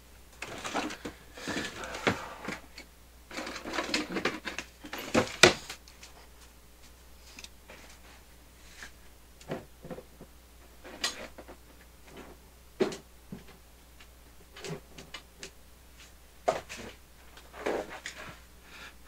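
Handling and movement noise: a run of rustling, scraping and knocking for the first six seconds, loudest about five and a half seconds in, then scattered single clicks and knocks as someone moves about and sets things down.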